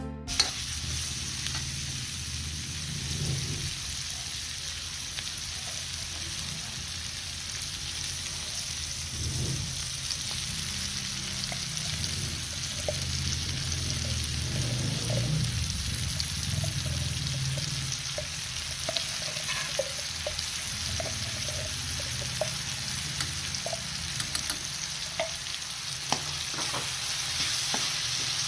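Pork and vegetables sizzling in a hot wok, stirred with a metal spatula that scrapes and clicks against the pan now and then over a steady sizzle.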